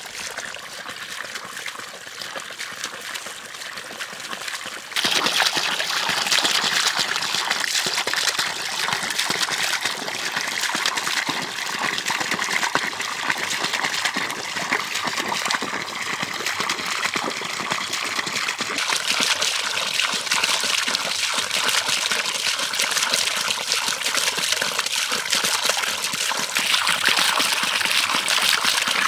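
Water pouring in a steady stream from a pipe and splashing onto the blades of a small improvised water wheel, a continuous trickling and gushing that gets louder about five seconds in.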